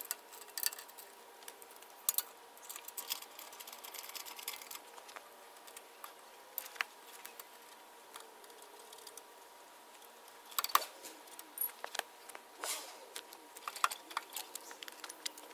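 Scattered light metallic clicks and clinks of hand tools and loosened hardware as a motorcycle's slip-on muffler is unbolted and removed. The clicks come in two busy spells, one at the start and one from about ten seconds in, with a quieter stretch between them.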